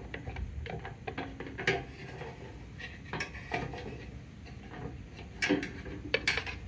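Irregular light clicks and knocks of small parts being handled as a fuel level sender float is worked into a fuel pump assembly, with a few sharper clicks spread through.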